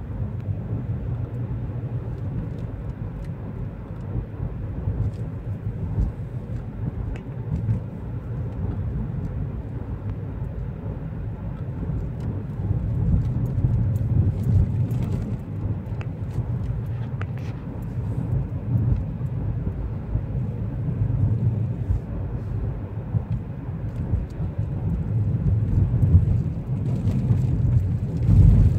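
Road and engine noise heard inside a moving car: a steady low rumble that swells a little now and then, with a few faint ticks.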